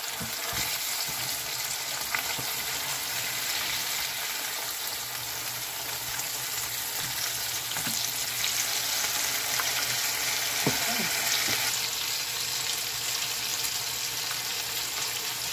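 Flour-breaded cauliflower pieces frying in hot oil in a pan: a steady sizzle, with a few light taps of the spatula and wooden turner as the pieces are turned.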